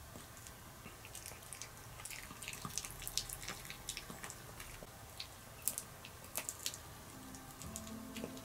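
Pomeranian chewing a sweet potato and duck meat dog treat: irregular wet clicks and smacks of the jaws, teeth and tongue. Background music comes in near the end.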